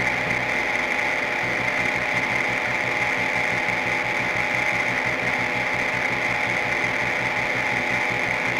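Experimental electronic music without vocals: a dense, unchanging wall of sound with a fast flutter in the low end and a bright steady hiss on top.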